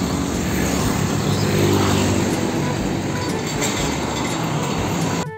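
Road traffic noise, with the steady engine of a car-carrier truck driving past among other cars and motorbikes; it cuts off suddenly near the end.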